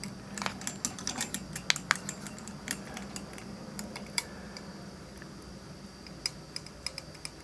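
Small metallic clicks and clinks from the hanging hook, soldered stainless washers and weight bag being pulled down with a luggage scale, quick and dense for the first couple of seconds, then sparser, over a faint steady hum.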